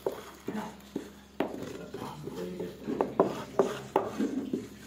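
Hard knocks and scrapes of a small cement slab being handled against a concrete mould: a few single knocks, then a quick run of about five sharp knocks in the second half, with gritty scraping between.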